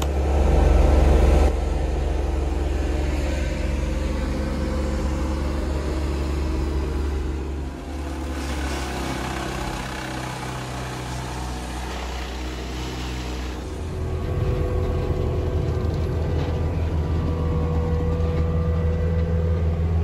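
Heavy diesel machinery running steadily: an excavator's engine and a tracked wood chipper working nearby, heard from inside the excavator cab. A deep, even hum throughout, with the mix of engine tones changing abruptly three times.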